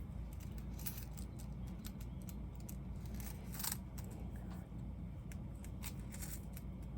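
Faint handling noise of small craft items: a few light clicks and rustles, spread out, over a steady low room hum.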